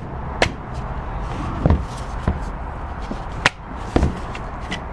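Hard plastic clicks and knocks as a safety guard is pressed and snapped onto a Milwaukee M18 Fuel compact band saw, about five separate sharp knocks over a low steady hum.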